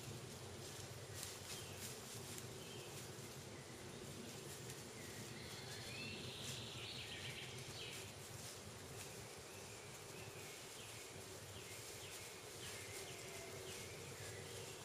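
Quiet woodland ambience: a steady, faint background hiss with short bird chirps now and then.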